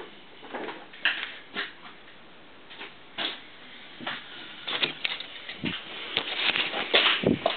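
Scattered short knocks, scrapes and clinks of metal tools and parts being handled at a metal lathe, getting busier about halfway through, along with handling noise as the camera is moved.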